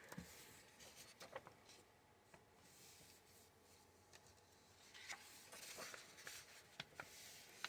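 Faint rustling of paper pages being handled and turned, with a few soft clicks; otherwise near silence.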